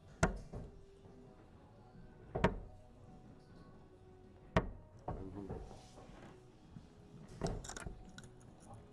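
Three steel-tip darts striking a Winmau Blade 6 bristle dartboard one after another, about two seconds apart, each a single sharp thud. Near the end, a short run of clicks and rattles as the darts are pulled out of the board.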